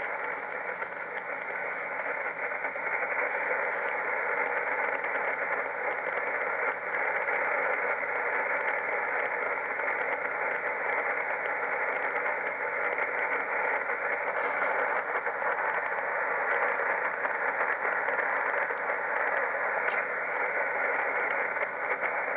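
Steady hiss and static from a shortwave radio receiver tuned to the RWM time-signal frequency of 9996 kHz, heard through the receiver's narrow audio passband, with no clear beeps or Morse keying standing out.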